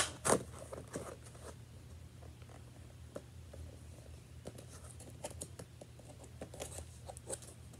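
Clear plastic blister pack of a boxed action figure being handled and picked at by hand: a couple of sharp plastic clicks right at the start, then scattered light clicks and crinkles. A steady low hum runs underneath.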